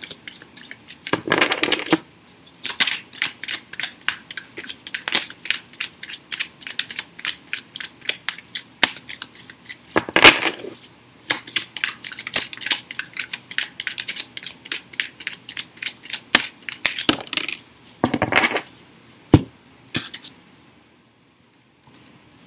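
A tarot deck shuffled by hand: a rapid patter of cards flicking and slapping together, broken by three longer riffling swishes. It stops shortly before the end.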